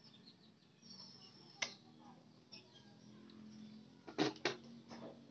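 Mouth sounds from chewing and spitting out a mouthful of bitter raw papaya leaf: a sharp smack about a second and a half in, then two louder spits or smacks in quick succession just after four seconds, with a weaker one soon after.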